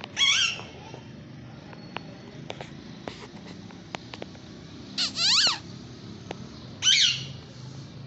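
Parakeet giving three loud, shrill screeching calls, each dropping in pitch: one right at the start, a double call about five seconds in, and one near seven seconds, with a few faint clicks in between.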